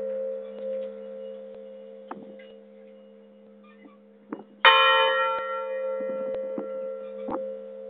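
Large church bell struck once by its clapper a little past halfway, ringing on in a long fading tone over a steady deep hum; before it, the previous stroke dies away, with a few light knocks.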